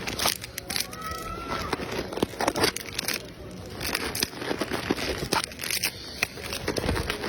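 Food wrapping crinkling and crackling irregularly as it is handled, with a brief faint squeak about a second in.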